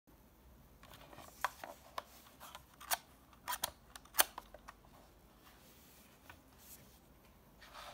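Minolta F10BF compact 35mm film camera handled: a scattering of short plastic clicks and taps from its body and controls, including its sliding lens cover being closed. The sharpest click comes about four seconds in.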